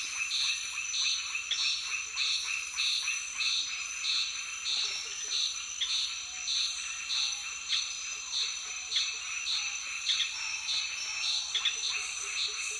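A chorus of frogs and insects: a high call repeating about two to three times a second over a steady, high-pitched insect drone.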